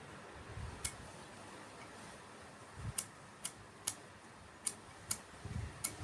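A tobacco pipe being puffed on as it is lit: soft low puffs of breath with a series of small, sharp clicks from the lips and mouthpiece, about seven in all.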